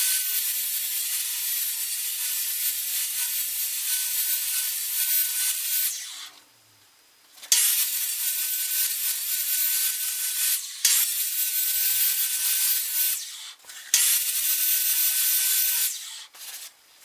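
Circular saw, mounted upside down in a homemade sliding jig, running and taking a shallow planing skim across the painted end-grain face of a log round: a steady high whine over the rasp of the cut. It comes in several stretches, breaking off for over a second about six seconds in and with shorter gaps later.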